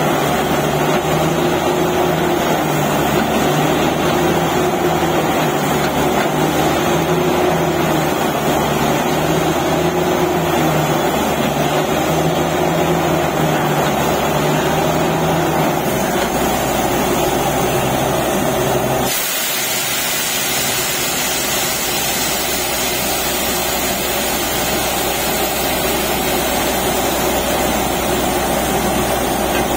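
Truck-mounted borewell drilling rig running steadily, its engine and air compressor going while air blows the drill cuttings out of the bore. About 19 seconds in, the sound changes abruptly: the low engine hum drops away and a steadier, brighter hiss is left.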